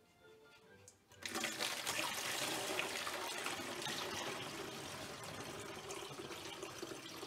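Soda pouring from a stainless steel bowl through a plastic funnel into a glass carafe. The pour starts suddenly about a second in and runs on steadily.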